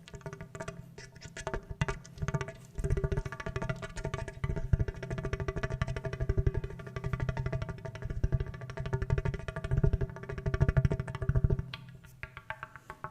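Rapid, even tapping on a hose, each tap carrying a ringing pitched tone, so the run sounds almost musical. It grows louder about three seconds in and fades back down near the end.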